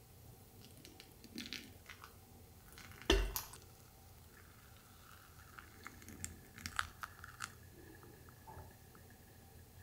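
Hot water poured from a gooseneck kettle onto ground coffee in a paper filter, with soft crackles and clicks as the wet grounds bloom. One sharp knock about three seconds in is the loudest sound.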